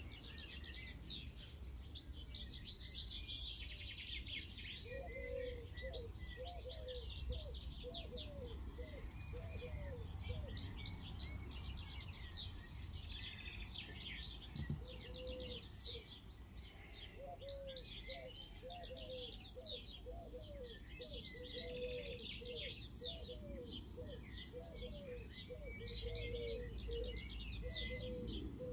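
Several birds chirping and twittering without a break. Through much of it a lower call repeats quickly, several times a second, over a steady low rumble.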